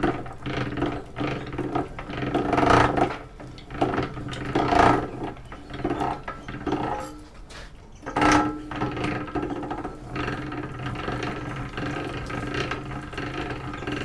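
Enerpat copper wire stripper being cranked, its gears turning as a thick, double-insulated copper cable is drawn through the blades to slit the insulation. The sound runs steadily, with louder surges about 3, 5 and 8 seconds in.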